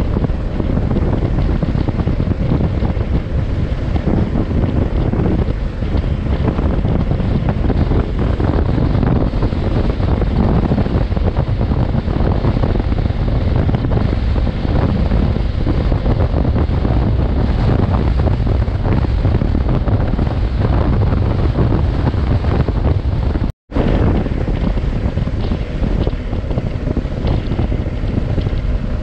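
Steady, loud wind noise battering an action camera's microphone on a moving adventure motorcycle, with the bike's running and road noise mixed in underneath. The sound cuts out for an instant about four-fifths of the way through.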